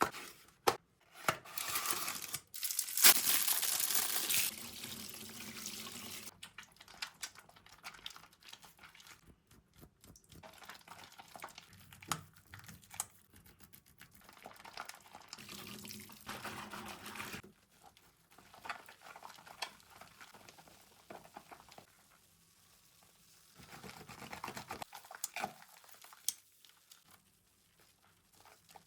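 A wet cream soap bar being lathered by hand into thick foam, wet rubbing and squishing with a fine crackling of tiny bursting bubbles. A louder, steadier rushing stretch fills the first few seconds, and the rubbing comes in spells with quieter crackly gaps between.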